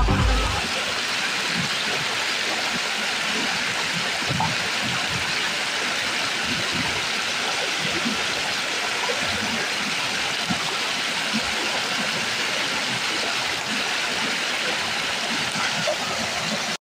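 A fast-flowing river rushing steadily.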